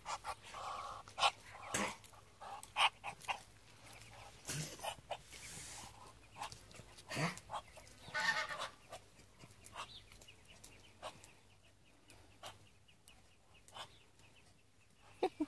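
Muscovy ducks and ducklings foraging close by: scattered short clucking calls among many sharp pecking and scratching clicks.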